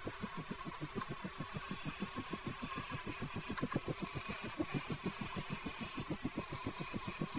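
Vintage 1960s Rockwell Delta wood lathe running with a slender wooden spindle on it, with a steady rhythmic thump about seven times a second over a faint hum.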